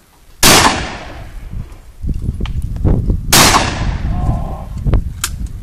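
Two shots from a 12-gauge Ruger Red Label over-and-under shotgun, about three seconds apart, each a sharp bang trailing off in echo. A low rumbling noise sets in about two seconds in, and a sharp click comes near the end.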